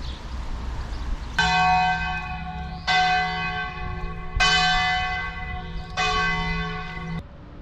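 Church bell striking four times, about a second and a half apart, each stroke ringing on until the next; the ringing cuts off suddenly after the fourth stroke.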